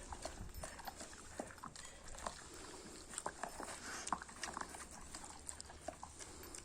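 Dalmatian eating rice: irregular wet smacks and clicks of jaws and teeth, a few a second.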